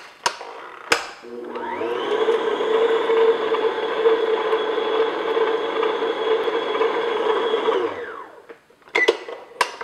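Electric stand mixer beating butter and cream cheese in a steel bowl: the motor spins up about a second in, runs at a steady whine, then winds down near the end. Sharp clicks of the speed dial and bowl come before it starts and after it stops.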